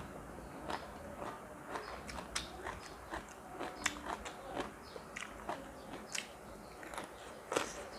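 Close-up eating: irregular crunchy bites and chewing, a few crisp crunches a second.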